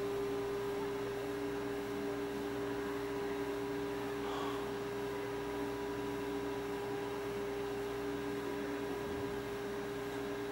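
Steady electrical hum made of two low tones over a faint hiss.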